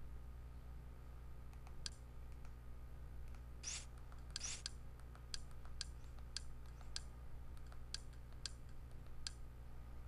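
Small sharp button clicks, about eight of them roughly half a second apart in the second half, with a couple of short scratchy rustles around four seconds in, over a steady low hum. These are the clicks of a control being pressed to step through an on-screen menu.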